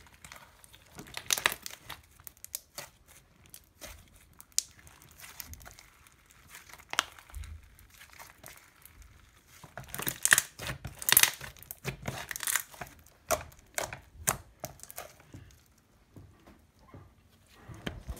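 A thick semi-foam slime being kneaded, pressed and folded by hand. It gives off clusters of sticky crackles and small popping clicks, loudest and busiest about ten to thirteen seconds in.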